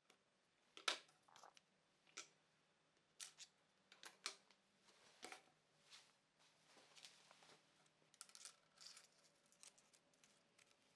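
Faint, scattered clicks and light taps of small plastic one-handed bar clamps being released and a thin, dried wooden veneer strip being lifted and handled on a cutting mat; the loudest click comes about a second in.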